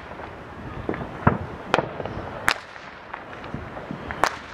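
Fireworks exploding: about five sharp bangs at uneven intervals over a steady background noise.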